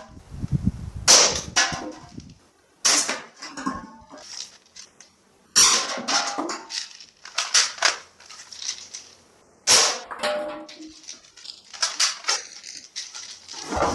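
Toy guns being fired: a series of sudden shooting sounds, each fading away quickly, some coming in quick runs of two or three.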